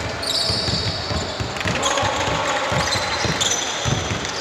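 Basketball bouncing on the court floor during play, a run of irregular dull thumps, with a few short high squeaks like shoes on the floor.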